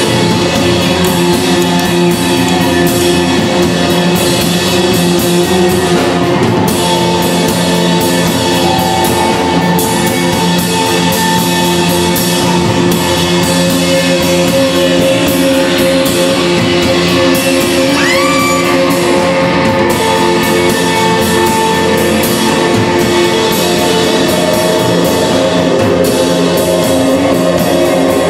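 Live improvised band music, loud and continuous: drum kit, bass and electric guitar over electronic loops and machines, a dense sustained wash with frequent cymbal and drum strikes. A short upward pitch slide sounds about eighteen seconds in.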